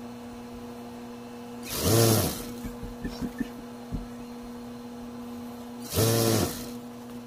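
Juki industrial sewing machine: its motor hums steadily, and the machine stitches in two short bursts, about two seconds and six seconds in, each speeding up and then stopping.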